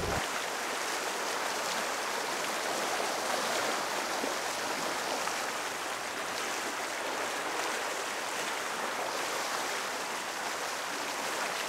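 Water rushing and splashing along the bow of a barquentine under way: a steady, even hiss of the bow wave.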